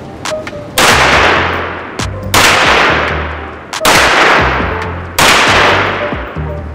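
Four rifle shots fired at a slow, even pace about a second and a half apart, each echoing off the walls of an indoor range and fading over more than a second. A low music beat runs underneath.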